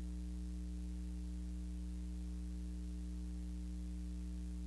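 Steady low electrical hum with an even hiss and nothing else: the blank soundtrack of a silent newsreel transfer.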